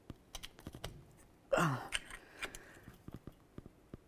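Scattered metal clicks and scrapes of a screwdriver prying between a brake caliper and its rotor, with the caliper barely budging. A short grunt of effort, falling in pitch, comes about a second and a half in.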